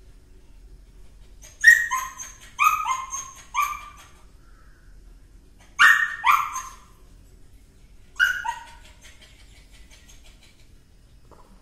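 Small white spitz-type dog barking in three short bouts: a quick run of four high barks, then two, then two more, each bark dropping in pitch.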